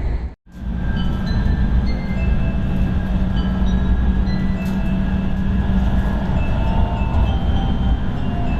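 Kyushu Shinkansen train running at speed, heard inside the passenger car: a steady, loud low rumble with faint brief tones above it. A moment of silence just after the start marks a cut in the recording.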